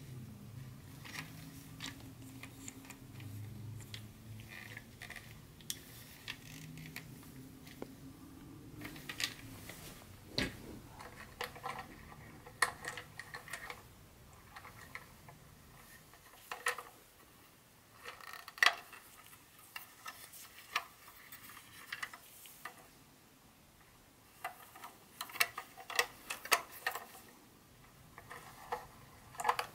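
Plastic clicks and light rattles of toy train cars being handled and turned over in the hands: a Lionel John Deere set's tank car and container flatcar, with their plastic wheels, trucks and couplers. Scattered sharp ticks, thicker near the end, over a faint low hum that stops about ten seconds in.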